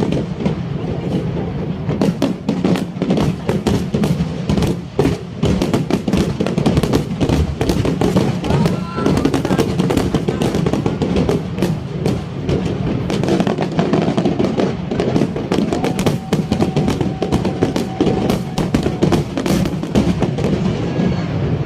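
Fireworks display in a dense barrage: many sharp bangs and crackles following each other rapidly, with music playing underneath.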